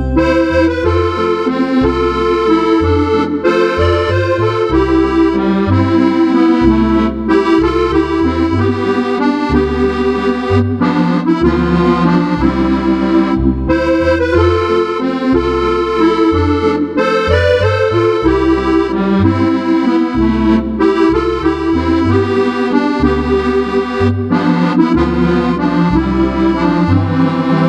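Roland FR-8X digital accordion playing a tune on an organ-like Cordovox voice: sustained melody and chords over a steadily moving bass.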